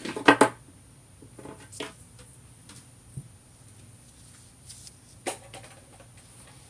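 A few sharp knocks and clatters of objects being handled right at the start, then faint scattered taps and rustles over low room tone, with one more knock about five seconds in.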